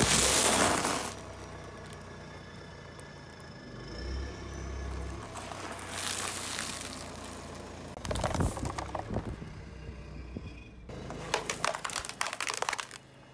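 A car tyre rolling slowly over objects and crushing them. A plastic bag of small round balls bursts with a loud crunch about a second in, and there are more crunches and crackles as the tyre works over the spilled balls. Near the end, polystyrene foam trays give way under the tyre in a quick run of sharp cracks and squeaks.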